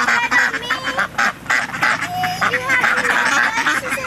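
A flock of white domestic ducks quacking in a continuous overlapping chorus of short calls as they crowd in to be hand-fed bread.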